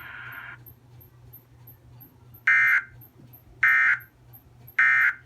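Emergency Alert System end-of-message data tones: three short, harsh, buzzing bursts a little over a second apart, the digital code that closes an alert. Before them, a hiss stops about half a second in.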